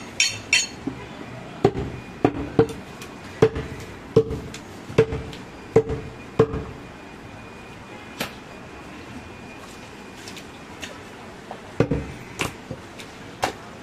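A butcher's cleaver chopping goat meat on a wooden log chopping block: a string of sharp chops, roughly one every three-quarters of a second for the first six seconds or so, then a pause, then a few more chops near the end.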